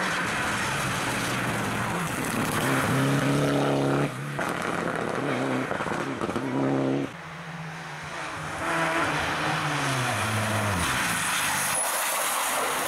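Rally car engine revving hard: its pitch climbs, breaks off sharply twice (about four and seven seconds in), then falls steadily as the car moves away, over a steady hiss of tyre and road noise.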